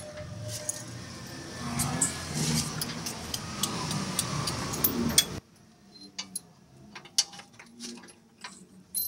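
Metal clinks and taps of tools and parts being handled, over a busy background noise that cuts off suddenly about five seconds in, leaving scattered light taps.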